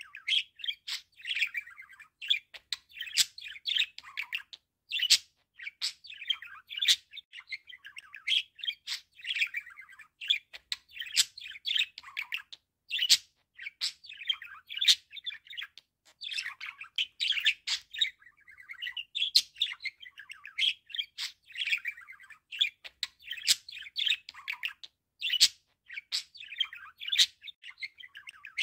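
Budgerigar warbling: a continuous chatter of chirps, squeaks and sharp clicks.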